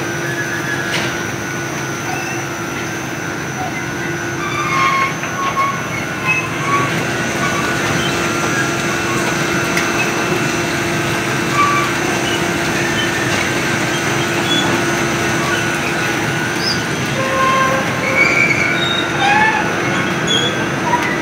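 Belt conveyor running: a steady mechanical hum with a low steady tone, and short high squeaks coming and going over it.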